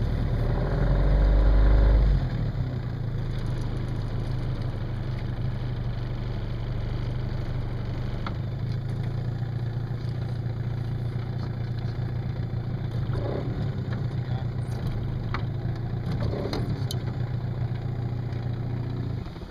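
Small boat's outboard motor running, louder for the first two seconds and then throttled back to a steady lower note. It is shut off near the end.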